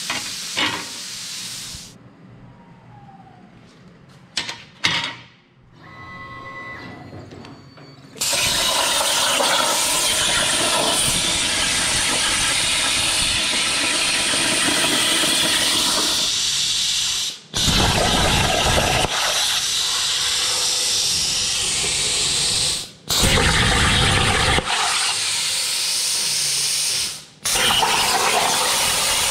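Plasma torch of a CNC plasma table cutting aluminium diamond plate: a loud steady hiss that starts about eight seconds in and stops briefly three times. Before it starts, a quieter stretch with a few knocks.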